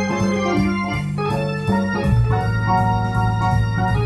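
Electronic organ playing a swing jazz arrangement: held chords over a moving bass line.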